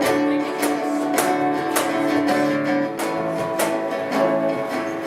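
Background acoustic guitar strummed in a slow, even rhythm, sustained chords ringing under the pause.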